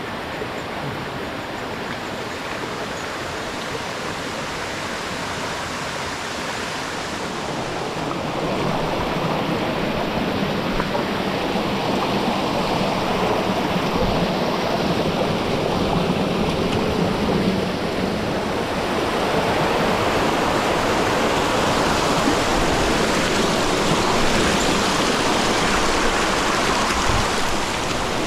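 Mountain stream water rushing steadily, growing louder about eight seconds in and again near twenty seconds.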